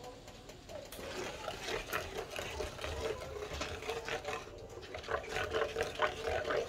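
Wooden spatula stirring a thin honey-soy sauce in a nonstick grill pan, scraping over the ridged bottom and stirring the liquid in irregular strokes.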